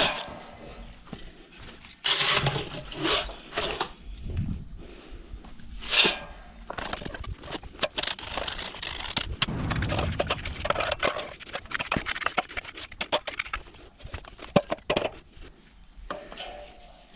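Irregular scraping and knocking of hand tools working wet concrete, with a busy stretch of quick clatter in the middle.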